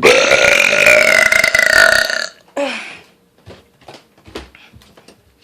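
A woman's deliberate, loud burp, drawn out for about two seconds at an even pitch. A brief vocal sound follows, then a few faint clicks.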